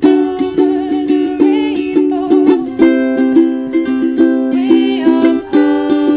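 Background music: a light, strummed acoustic tune, most likely a ukulele, with quick, even strokes over a steady beat.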